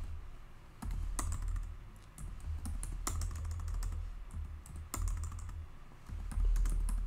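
Typing on a computer keyboard: irregular, spaced-out keystrokes entering short commands, over a low hum.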